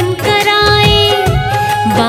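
Hindi devotional bhajan music: a melody holds one long note over a steady drum beat.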